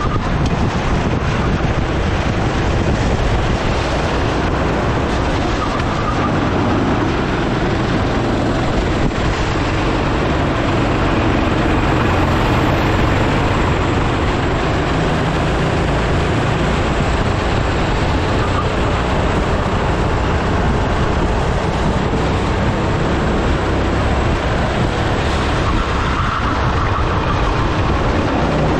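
Racing kart engine running hard at speed, recorded from a camera mounted on the kart itself, a steady loud mix of engine and rushing air.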